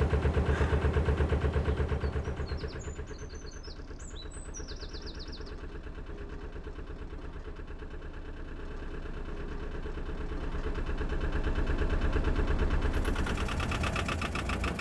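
Narrowboat engine running steadily at idle with an even pulsing beat, getting louder near the end.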